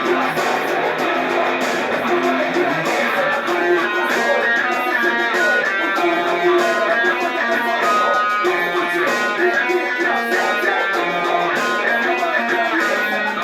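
Guitar music with no vocals: an instrumental passage of the song.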